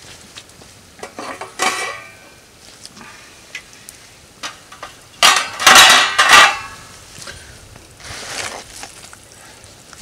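Metal clatter of a stainless steel stockpot lid being handled as the boiling pot is uncovered: a short clank about a second and a half in, then a louder run of clanks and scrapes between about five and six and a half seconds in.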